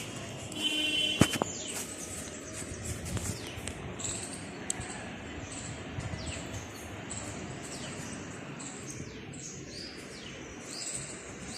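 Parrots calling: many short, high, falling screeches, one after another throughout. About a second in there is a brief squeak and a sharp click.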